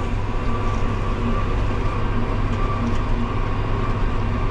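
John Deere 7810 tractor's six-cylinder diesel engine running steadily while mowing, heard from inside the cab.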